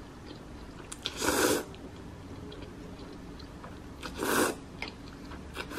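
A person slurping noodles twice, each a short hissing slurp of about half a second, about a second in and again just after four seconds, with faint chewing clicks between.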